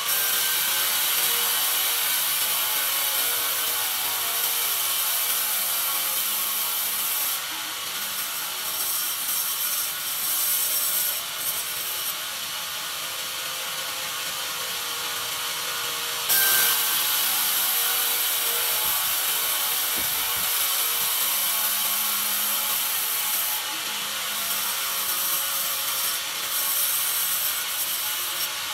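Sawmill bandsaw blade cutting lengthwise through a pine board fed on a carriage: a steady, high rasping saw noise. It drops back about a quarter of the way in and comes back louder, suddenly, a little past halfway.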